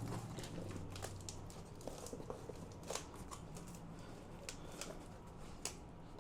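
Cardboard box and packaging being handled and opened: faint, irregular light clicks, scrapes and crinkles.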